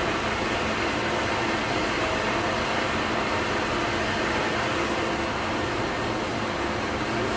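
Jet dyeing machines running in a textile dyeing plant: a steady, unbroken mechanical drone with a hiss.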